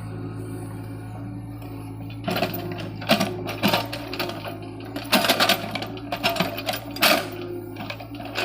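Tata Hitachi excavator's diesel engine running at a steady speed, joined from about two seconds in by irregular, loud clattering and scraping bursts as the machine works.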